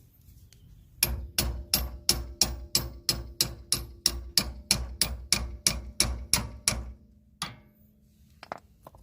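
A steady run of hammer blows, about three a second for some six seconds, each with a thud and a faint metallic ring, then one more blow and a few light clicks.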